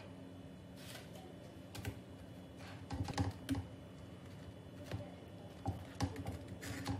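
Faint, irregular light taps and clicks of a silicone spatula and fried bread triangles against a non-stick pan as the bread is laid into cooled sugar syrup, with a few quick clusters of knocks.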